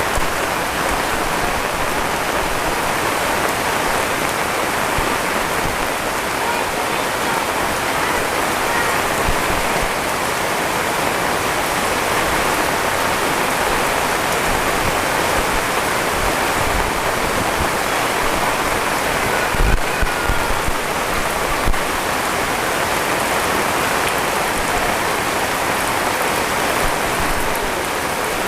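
Heavy rain falling steadily, a dense even hiss, with a few brief low thumps about twenty seconds in.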